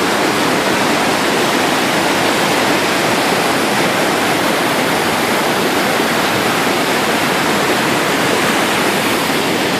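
Whitewater river rapids rushing over rocks, a loud steady roar of churning water.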